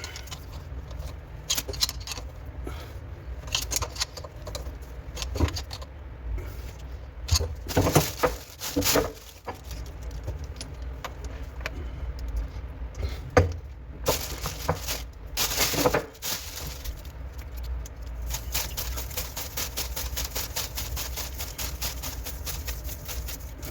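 Metal parts and tools being handled, clinking and rattling in irregular knocks, with a fast steady run of clicks over the last few seconds, such as plumbing fittings being fitted and tightened.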